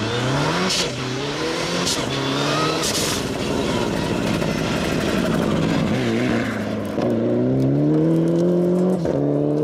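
Mitsubishi Lancer Evolution rally car's turbocharged four-cylinder engine accelerating hard, revving up through the gears in repeated rising sweeps that drop back at each shift. A few sharp cracks come in the first three seconds.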